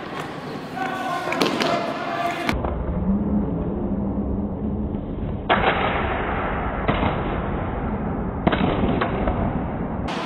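Steel practice longswords striking and clashing in a fencing bout: a few sharp knocks about halfway through and again near the end. They sound dull and muffled over a low rumble. Voices are heard in the first couple of seconds.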